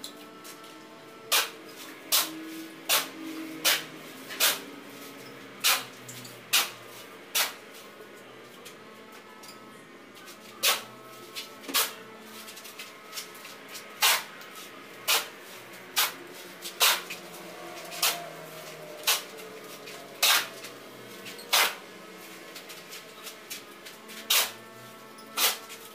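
Steel shovel blade scraping and striking a concrete floor as sand-cement mortar is mixed and turned by hand, a short sharp scrape about once a second at an uneven pace.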